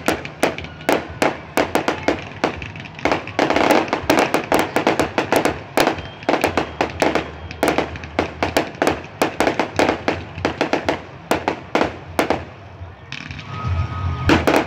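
Aerial fireworks going off in a rapid barrage of sharp bangs and crackles, several a second. The bangs let up briefly near the end before another loud burst.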